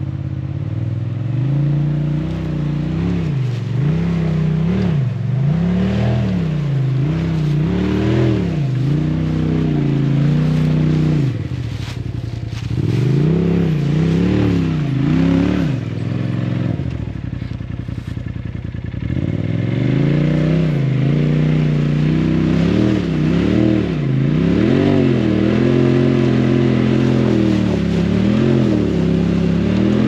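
Polaris RZR Turbo S side-by-side with an aftermarket Trinity Racing exhaust, its turbocharged twin-cylinder engine revving in repeated throttle bursts as it crawls up a rocky climb. It drops back to a steady idle twice, about halfway through and again past the middle, before the revving resumes.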